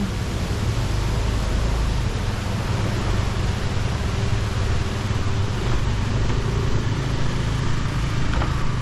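Steady road-traffic noise, a low rumble with a hiss, as cars and motorbikes pass on the street.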